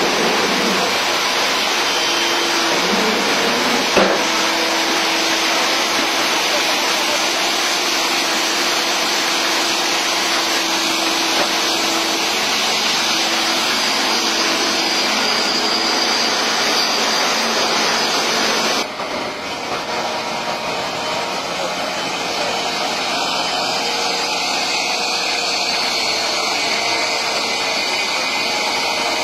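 Steady machine noise from construction machinery running, with a single knock about four seconds in; the sound changes abruptly about two-thirds of the way through.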